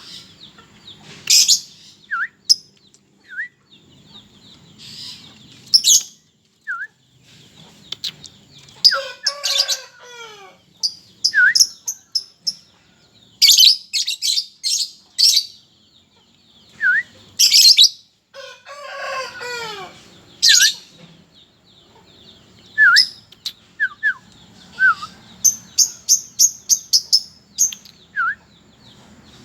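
Two lovebirds giving loud, shrill chirps and rapid chattering trills, answering short falling whistles. Twice, about 9 and 19 seconds in, a longer call falls steeply in pitch, like a rooster crowing.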